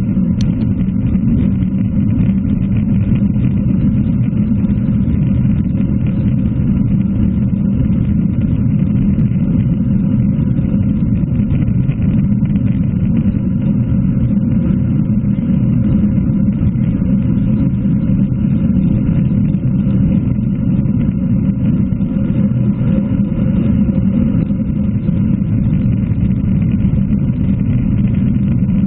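Steady wind rumble on a bike-mounted action camera's microphone at about 43 km/h, mixed with road noise from the bike's tyres on wet tarmac.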